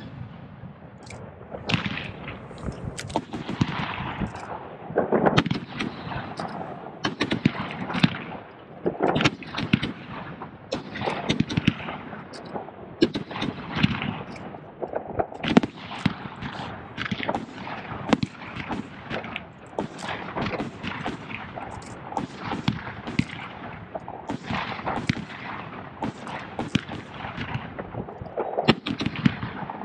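Professional aerial fireworks display: shells launching and bursting in quick, irregular succession, a continuous barrage of sharp bangs with echoing tails.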